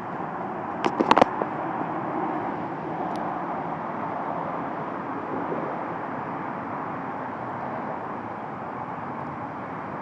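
Steady road traffic noise of passing cars, with a few short clicks about a second in.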